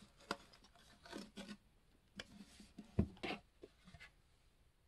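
Faint rustling and scraping of a cardboard gift box and its ribbon being handled as the lid is pulled off, in short scattered bits, with a soft knock about three seconds in.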